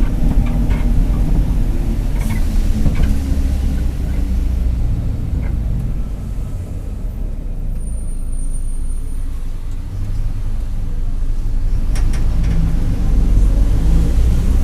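Mercedes-Benz OF-1721 city bus under way, its four-cylinder diesel engine running, with the growl of its rear differential. The engine eases off a few seconds in and pulls again near the end, with a few short clicks and rattles from the body.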